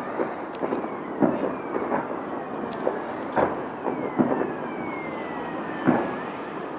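Aerial fireworks bursting with irregular sharp bangs, over long whistles falling slowly in pitch and a steady rumbling background.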